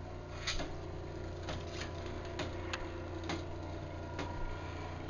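Craftsman 1/2 hp belt-drive garage door opener (139.54920) running in its closing cycle: a steady motor hum, with a few scattered light clicks.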